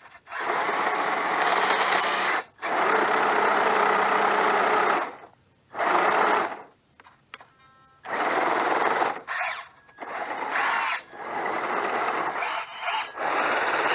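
HG P802 8x8 RC truck's electric motor and gearbox whirring under throttle, in repeated bursts of one to a few seconds with short stops between.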